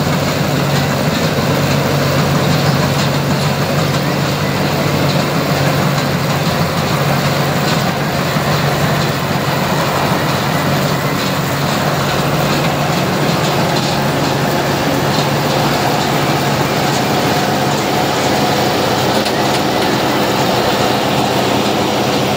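Tracked rice combine harvester running steadily while cutting lodged, flattened rice: its engine and threshing machinery make one continuous loud hum.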